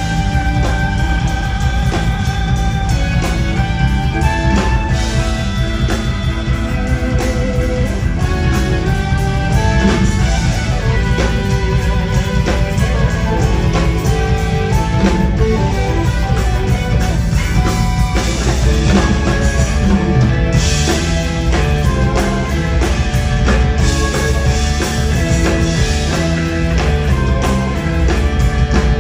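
Live progressive rock band playing an instrumental passage: melodic guitar lines over drum kit and bass, loud and dense throughout, heard from out in the concert hall.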